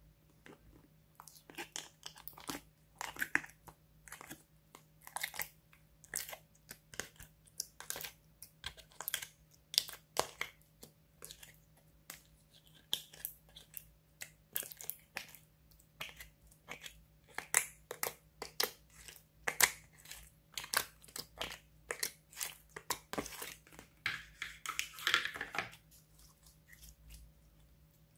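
Hands working clear slime and a plastic compartment box of sequins and charms: irregular sharp clicks, crackles and sticky pops, with a denser crackling stretch near the end.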